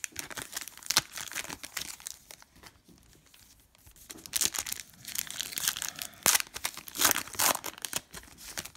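Foil trading-card pack wrapper crinkling and tearing as a pack is opened and cards are handled. The rustling comes in two stretches, briefly at first and then longer from about halfway, with a sharp click a little after six seconds in.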